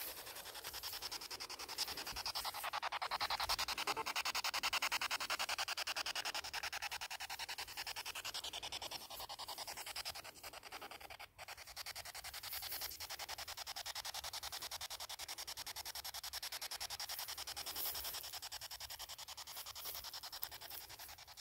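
Static hiss from a handheld ghost-hunting radio sweep device (spirit box), chopped into fast, even pulses as it scans.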